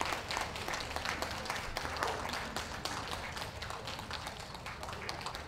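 Audience applauding, many scattered claps that thin out and fade near the end.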